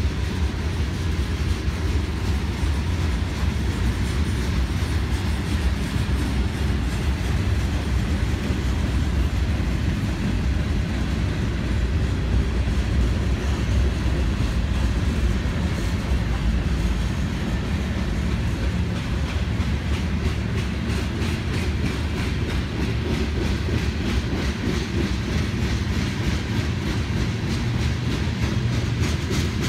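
Freight cars of a Norfolk Southern manifest train rolling past: a steady heavy rumble of steel wheels on rail, with a rhythmic clicking of wheels over rail joints.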